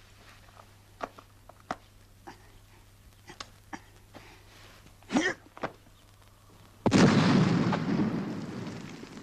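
Faint scattered clicks, then about seven seconds in a sudden loud explosion that rumbles and slowly dies away.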